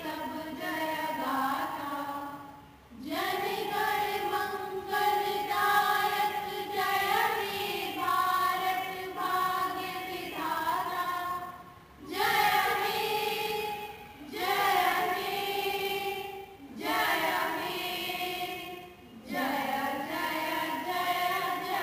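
A chorus of children's voices singing together in long held notes, phrase after phrase, with short pauses for breath between phrases.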